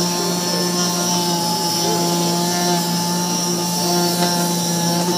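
Air-powered orbital sander with a foam-backed abrasive pad, running steadily at full speed while sanding a wooden cabinet door. It gives a constant whine with a high hiss on top.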